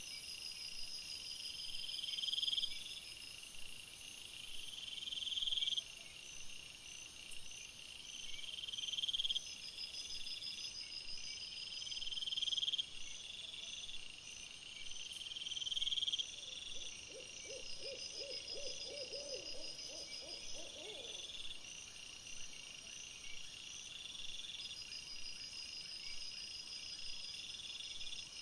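Night insects, crickets or bush crickets, chirping in repeated swelling trills. About two-thirds of the way through, a rapid run of lower-pitched pulsed calls from another animal lasts a few seconds.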